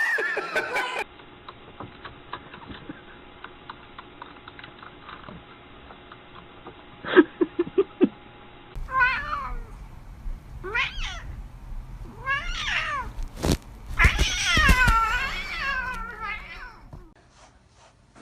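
A cat meowing and yowling, five long drawn-out calls that rise and fall in pitch, the longest and loudest one near the end, with a sharp knock between them. Before the meows, a quieter stretch with faint clicks and a brief low pulsing sound.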